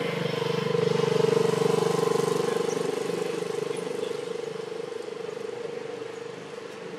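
A motor vehicle's engine running past, swelling to its loudest about a second in and then slowly fading away.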